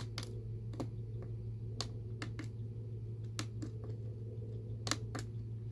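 About eight sharp clicks at irregular intervals, from buttons being pressed on the diesel heater's controller to start priming the fuel pump, over a steady low hum.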